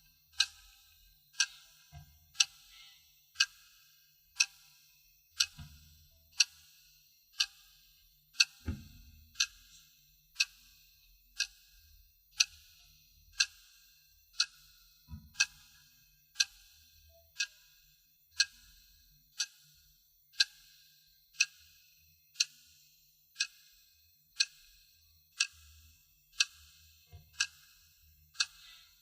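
Wristwatch ticking steadily, one sharp tick a second, with a soft low thud about nine seconds in.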